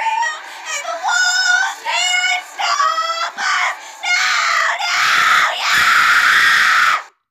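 A person's voice straining in high, wavering wordless singing, then about four seconds in breaking into a long harsh scream that lasts about three seconds and cuts off suddenly near the end.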